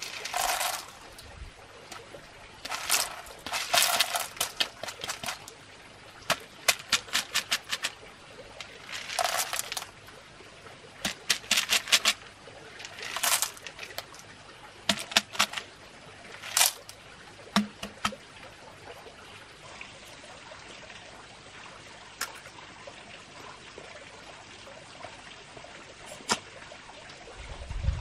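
Small snail shells tumbling out of a bamboo tube into a woven bamboo basket, clicking and rattling against each other and the bamboo in repeated shaken bursts, thinning to a few single clicks in the second half.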